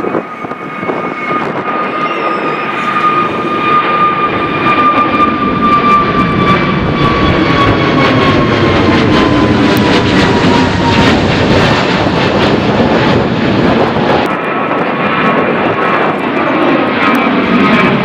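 Jet airliner engines at take-off thrust, a loud roar with a high whine that slowly falls in pitch as the aircraft climbs past. The sound changes abruptly about fourteen seconds in, and a second jet's engine roar carries on.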